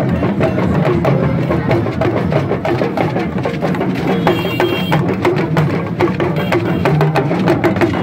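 Drum-led music with fast, steady rhythmic strikes, loud and unbroken.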